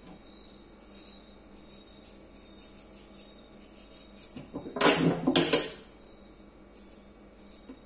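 Kitchen knife peeling the skin off a cucumber: faint light scrapes, then a loud rasping scrape of the blade over the skin lasting about a second and a half, a little past the middle.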